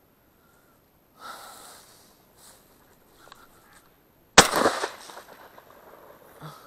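A single shotgun shot about four seconds in, a sharp crack with a short echoing tail; it is the shot that brings down a duck.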